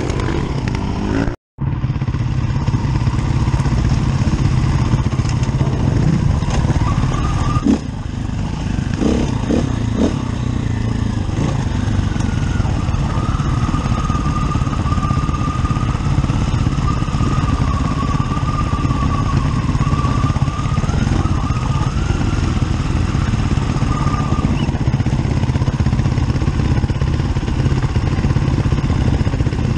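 Enduro dirt bike's engine running steadily under way on a rough dirt trail, heard from the bike itself, with a brief dropout about a second and a half in. A thin high whine rides over the engine for a stretch in the middle.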